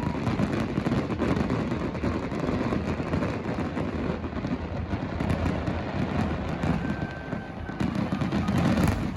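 Aerial fireworks going off in quick succession: a dense run of crackling bangs over a steady low rumble.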